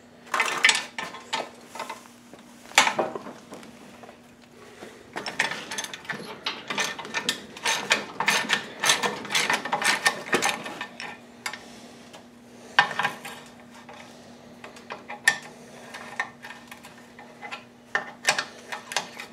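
A hand ratchet clicking in quick runs, with metal clanks in between, as hardware is tightened while a replacement lower ball joint is fitted to a control arm.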